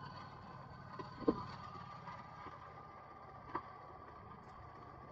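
Motorcycle engine running with a steady hum, with three short knocks: two close together about a second in, one past the middle.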